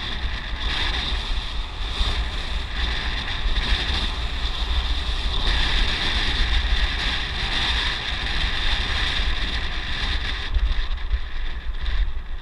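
Wind buffeting the microphone during a ride, a heavy low rumble that rises and falls unevenly, with a steady high-pitched hiss over it.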